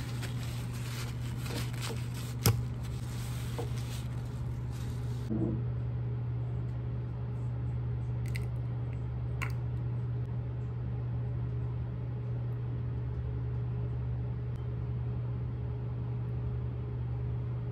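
Steady low mechanical hum, with one sharp click about two and a half seconds in and a couple of faint ticks later.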